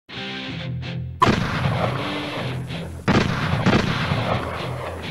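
Music with loud gunshot sound effects. The two biggest shots hit suddenly about a second in and about three seconds in, with lighter shots between them.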